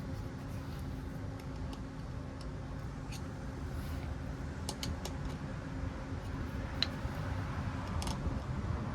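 Scattered light clicks and taps of small metal parts and tools being handled during compressor seal work, a few at a time and irregular, over a steady low background hum.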